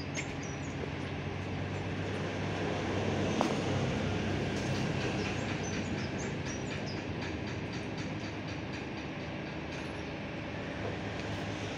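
A low, steady mechanical rumble with a faint engine-like hum. It swells over the first three to four seconds and then slowly fades, like a heavy vehicle passing. A single sharp click comes about three and a half seconds in.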